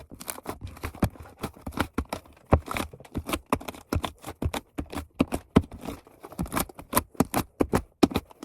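Fluffy slime being squeezed and stretched in the hands, giving off many sharp, irregular clicks and pops, several a second.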